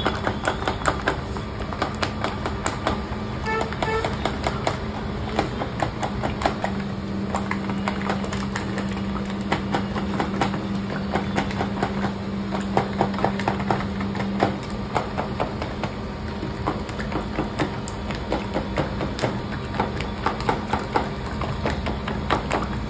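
A steel spoon clicking and tapping against plastic cups and a steel bowl in quick, uneven strokes as falooda toppings are spooned into cup after cup, over a steady low hum.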